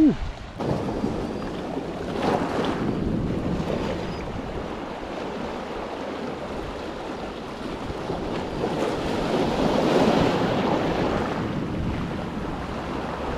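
Small sea waves washing in over boulders and pebbles at the shoreline, rising and easing in surges and loudest about ten seconds in.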